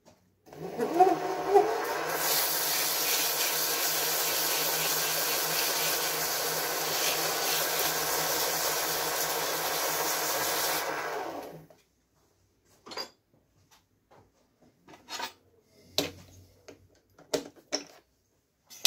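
Small benchtop metal lathe starting up with a rising whine, then a hand file held against the spinning workpiece rasps steadily over the lathe's hum for about nine seconds. The lathe stops a little past halfway, and a few sharp metal clicks and knocks follow as the chuck is handled.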